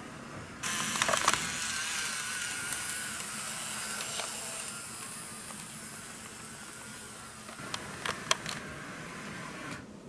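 N gauge model diesel railcar running on the track, with a steady rushing noise and a faint whine from its motor. The wheels click sharply over the rail joints, a few times shortly after it starts and again in a cluster near the end.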